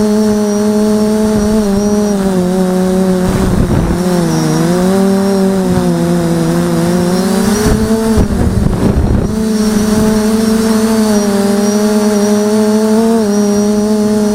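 Quadcopter's electric motors and propellers running in flight, picked up by its onboard camera: a steady buzzing whine from several motors at slightly different pitches. The pitch sags about four seconds in and climbs again near eight seconds as the throttle changes. Rushes of wind noise come around four and nine seconds in.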